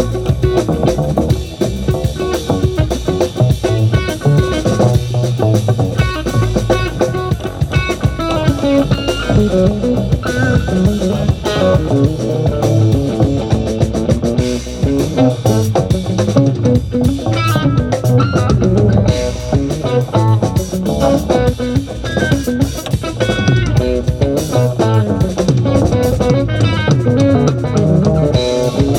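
Live band playing an instrumental jam: electric guitar over bass guitar and a drum kit, with no singing.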